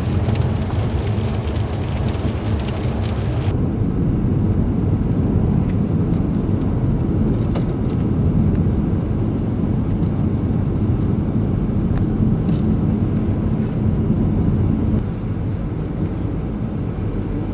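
Steady engine and road noise inside a moving Volvo car's cabin: a low, even rumble with no changes in engine speed.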